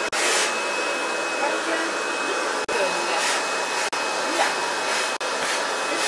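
Canister vacuum cleaner running steadily, a loud even hiss with a thin high whine, its nozzle drawn through a cat's fur. The hiss swells briefly now and then, and the sound breaks off for an instant a few times.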